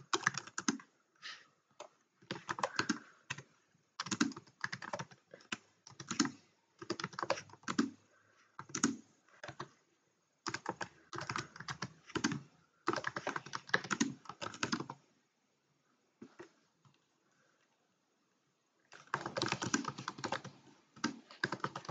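Typing on a computer keyboard: quick runs of key clicks with short breaks, then a gap of about four seconds before a last run of typing near the end.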